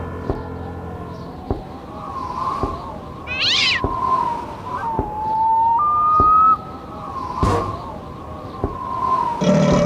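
Cartoon sound effects: a wavering, cat-like high-pitched cry that keeps rising and falling, a few sharp clicks, a quick high chirp, and two held whistle-like notes, the second a step higher, about five to six seconds in.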